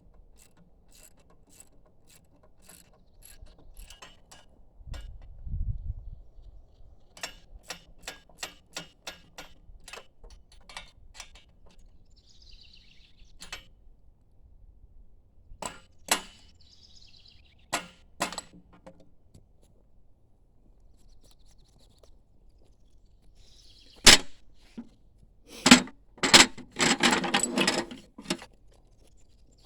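Hand adjustment of a chainsaw mill with the saw not running: a run of light clicks and taps, a dull thump about five seconds in, then sharp knocks and a burst of clattering near the end.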